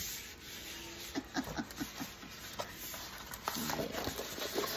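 Light rustling and a scattering of soft clicks as a diamond painting canvas with its clear plastic cover film is handled and rolled up by hand.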